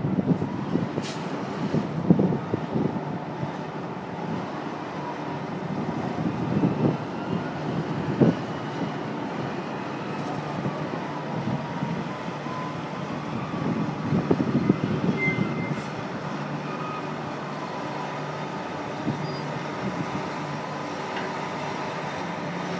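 New Holland FR9000 self-propelled forage harvester's diesel engine running steadily as the machine drives slowly down a ro-ro ship's ramp, with louder, irregular rumbles now and then.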